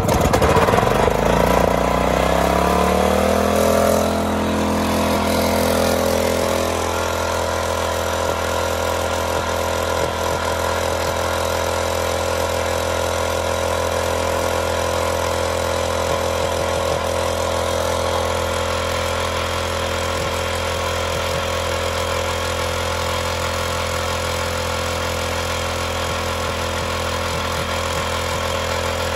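Small petrol engine of a core drill speeding up over the first few seconds, then running steadily under load while its water-cooled core bit turns in the asphalt, cutting a core sample.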